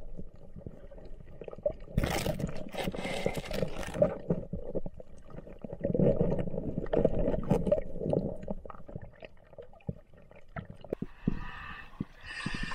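Muffled underwater sound recorded by an action camera: water rushing, with many small clicks and knocks from the diver moving over the reef and a brief hissing rush about two seconds in. Near the end the camera comes up out of the water at the boat's swim ladder and the sound turns brighter, with splashing.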